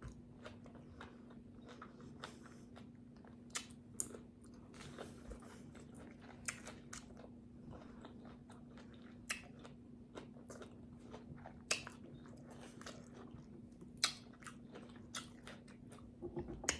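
Close-miked chewing and biting of tacos: irregular crunches and wet mouth smacks, with a faint steady hum behind.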